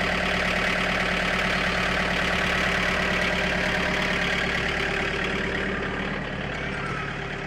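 A vehicle engine running steadily, easing off in loudness over the last couple of seconds.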